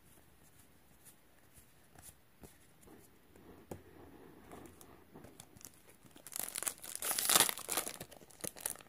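Foil wrapper of a Magic: The Gathering booster pack being torn open and crinkled by hand, a loud crackling that starts about six seconds in. Before it there are only faint ticks of cards being handled.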